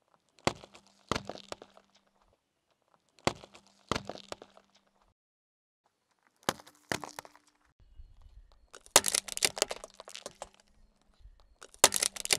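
Car tyre rolling over and crushing beetroots: three pairs of sharp cracks and crunches, then longer spells of dense crackling, the last of them a glass jar cracking and shattering under the tyre near the end.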